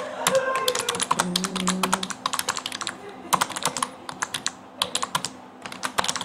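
Typing on a computer keyboard: quick runs of keystroke clicks with short pauses between words.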